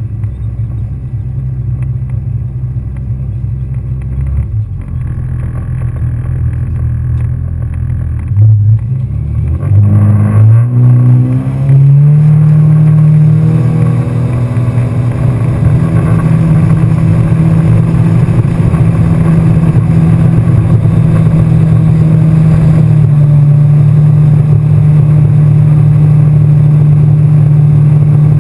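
Yamaha FX SHO personal watercraft's supercharged four-stroke engine running low at first, then revving up about nine seconds in as it accelerates away, rising in pitch and settling into a steady high-speed run.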